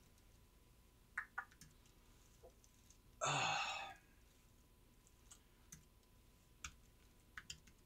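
Faint scattered clicks of a computer mouse and keyboard in use, with one louder, brief noisy sound about three seconds in.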